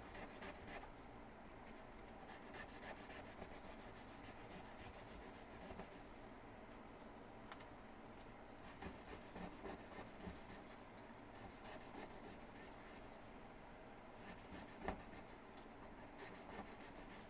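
Faint scratching of sandpaper rubbed by hand along the edges of wooden popsicle sticks, smoothing the cut corners, with one brief tap near the end.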